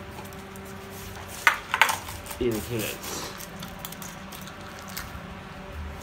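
A steel dog bowl of dry kibble set down on a concrete floor, two sharp metallic clanks about a second and a half in. A black Labrador puppy then eats from it, with small clicks of kibble and the bowl.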